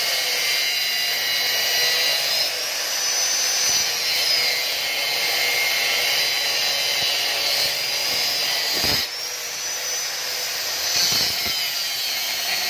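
Angle grinder with a cut-off disc cutting into the metal canister of a stock Yamaha NMAX muffler: a continuous high whine with a grinding rasp. Its pitch rises and falls as the disc bites into the metal and eases off, with a short dip in level about nine seconds in.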